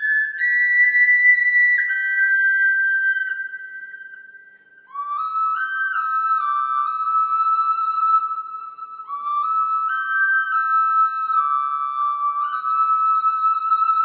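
Solo flute music: a slow melody of long held high notes, one phrase fading out about four seconds in and a new one beginning with notes slurring upward a second later.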